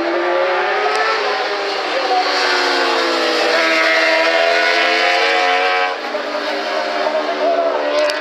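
Two 1000cc road-racing superbikes at full race revs riding close together. Their engine notes climb at first, run loudest and high through the middle as they pass, and drop away suddenly about six seconds in.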